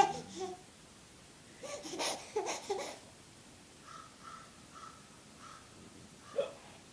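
A baby babbling and giggling in short bursts over the first few seconds, then a faint series of short high notes and one brief baby sound near the end.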